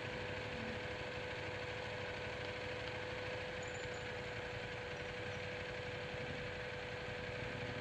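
Buell 1125R motorcycle's V-twin engine running steadily at low speed, with a constant hum.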